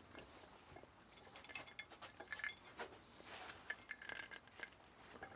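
Faint, scattered metal clicks and taps, some briefly ringing: steel tools and engine parts being handled while a cylinder head is stripped.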